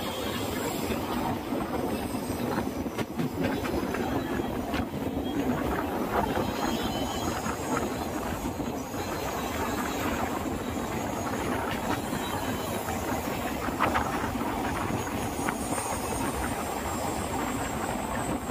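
Alleppey Superfast Express passenger train running along the track, a steady noise of the moving train and its wheels on the rails.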